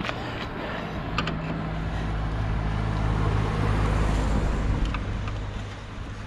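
A motor vehicle's engine running close by, growing louder to a peak about four seconds in and then fading, like a car passing. There is one light click about a second in.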